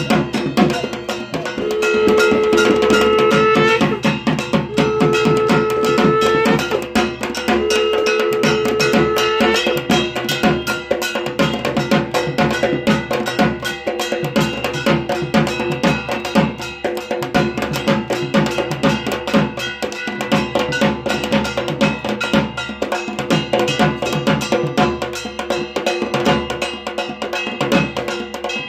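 Fast, unbroken ritual percussion: metal clanging, typical of a kansor bell-metal gong, over dhak drumming. Early on, three long steady horn-like blasts come one after another, typical of a conch shell sounded during puja.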